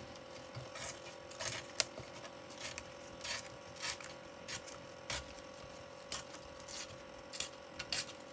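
Craft paper being handled on a desk: irregular rustles, scrapes and light taps. A faint steady hum runs underneath.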